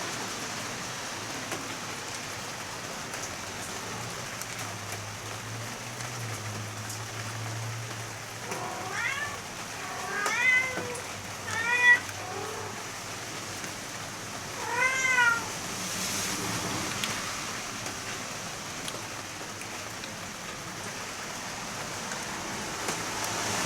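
A cat meowing, about four short meows in the middle stretch, the one near the middle loudest, over the steady hiss of heavy rain.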